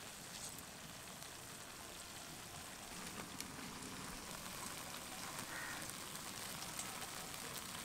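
Faint dripping and trickling of water squeezed by hand out of boiled soya chunks, falling through a wire strainer into a steel bowl.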